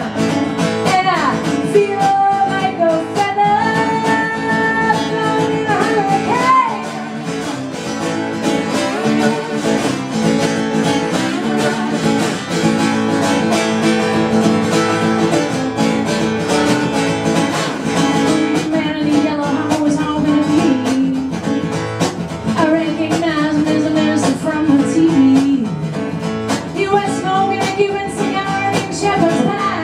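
A woman singing a song while strumming a steel-string acoustic guitar, with some long held notes in the vocal line.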